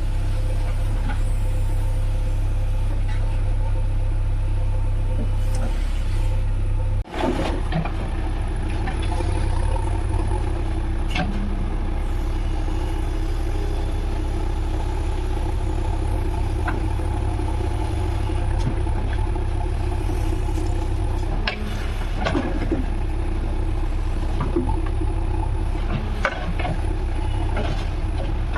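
JCB 3DX backhoe loader's diesel engine running steadily under work, with a few sharp metallic knocks from the machine along the way.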